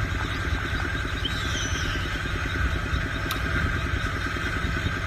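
A small engine running steadily with a fast, even chugging, and a single sharp click about three seconds in.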